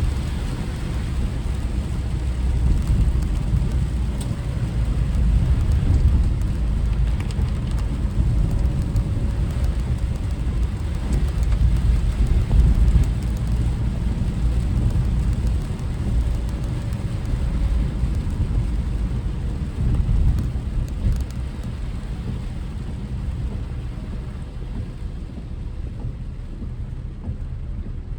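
A car driving in typhoon rain: a steady low rumble of road and tyre noise with the hiss of rain on the car, the higher hiss thinning out near the end.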